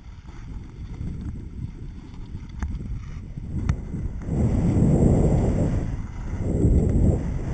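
Wind rumbling on an action camera's microphone while skiing downhill, with skis running on snow; the rumble grows much louder about four seconds in as the skier picks up speed.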